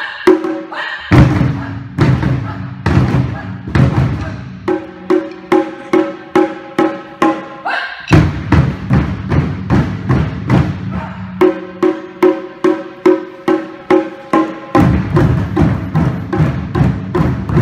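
Group taiko drumming: many sticks striking tape-covered practice drums and a red-bodied taiko drum together, a steady beat of about two strikes a second, with denser, deeper passages starting about a second in, at about eight seconds, and near fifteen seconds.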